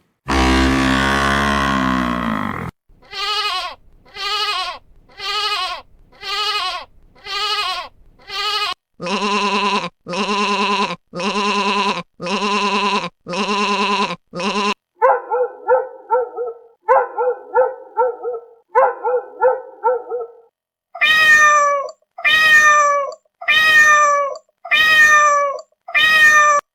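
A run of different animal calls, one kind after another, each repeated five or six times: a long call at the start, then sets of separate calls about a second apart, one set a quick chattering, and a last set of calls that fall in pitch.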